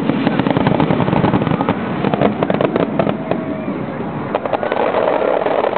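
Fireworks display: many bangs and crackles in quick succession, thinning out a little past the middle and picking up again near the end.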